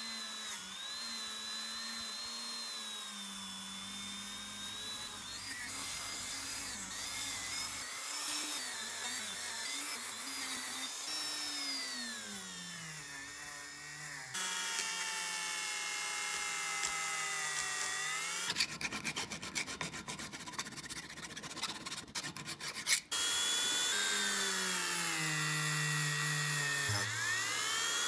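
Handheld rotary tool running at high speed with a small bit pressed against rusty metal parts, a high whine whose pitch sags each time the bit bears into the metal and recovers as it eases off. About two thirds of the way through, a stretch of rapid rattling clatter lasts a few seconds.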